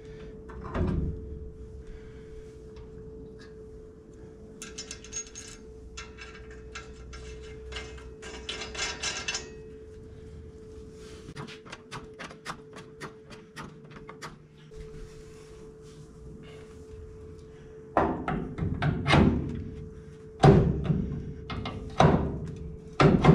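Metal disc brake spindle being handled on a 1968 C20's front suspension: light clicks and ticks of metal, then several loud metal clunks near the end as it is pushed up onto the upper control arm's ball joint, over a steady hum.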